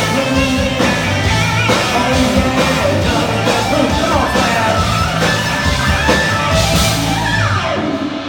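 Rock band playing loud through a PA: electric guitars, bass and drums, with some singing. Near the end the band stops, a guitar sliding down in pitch as it finishes.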